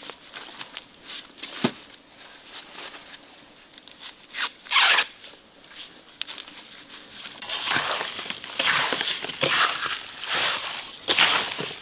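Hands mixing cubed raw beef with salt in a metal basin: wet squelching and crunching that starts about two thirds of the way in and continues. Before it, scattered light clicks and one short loud rustle about halfway.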